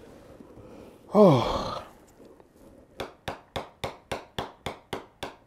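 A man's long sigh, its pitch falling, about a second in. From about three seconds in comes a run of sharp, evenly spaced taps, about three or four a second.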